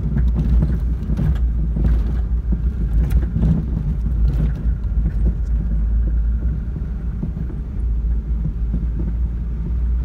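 Car driving over a rough dirt road, heard from inside the cabin: a steady low rumble with scattered knocks and rattles from the bumpy ride.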